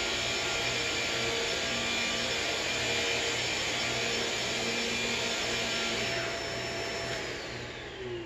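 Upright vacuum cleaner running steadily, its motor whine holding a constant pitch. Near the end it is switched off and the motor winds down, its whine falling in pitch.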